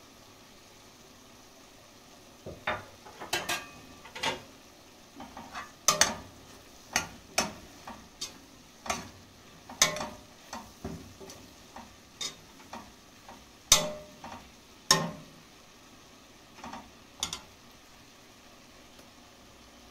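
A metal utensil clinking and knocking against a cooking pan as food is stirred. A couple of dozen irregular strikes, some ringing briefly, start about two and a half seconds in and stop shortly before the end.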